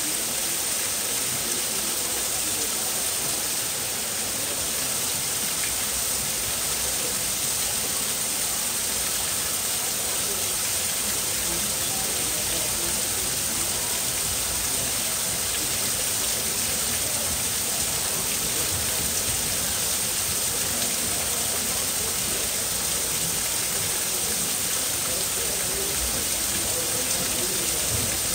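Steady rushing, hissing noise at a constant level, with faint voices murmuring underneath.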